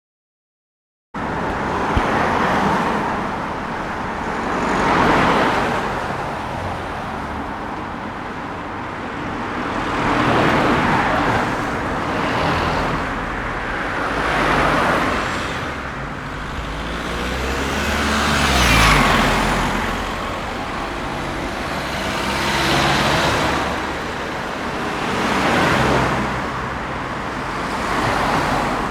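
Cars passing one after another along a town street, each a swell of tyre and engine noise that rises and fades, about nine in all. It starts after about a second of silence. One vehicle with a deeper engine note passes a little after halfway and is the loudest.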